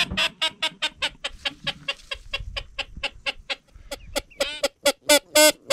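Duck call blown to teal: a fast, steady run of short, high peeping notes, about six a second, with a few louder notes near the end.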